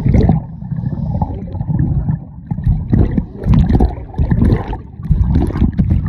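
Seawater splashing and sloshing around a microphone that dips in and out of the water: a muffled, low underwater churn and gurgling, broken by uneven surges of splashing.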